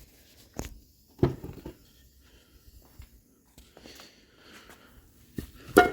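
A few separate knocks and clinks of metal parts and hand tools being handled, the loudest about a second in and near the end, the last with a short metallic ring.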